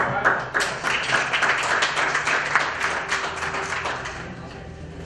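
Audience clapping, a dense patter of many hands that thins out and dies away near the end.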